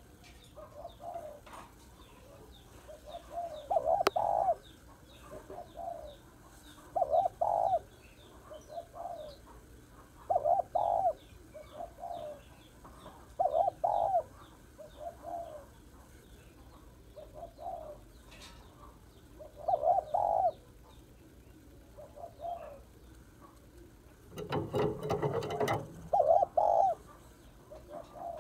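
Female spotted dove cooing: short phrases of hooting notes repeated every few seconds, the call a hen gives to rouse male doves. A brief loud rustle breaks in near the end.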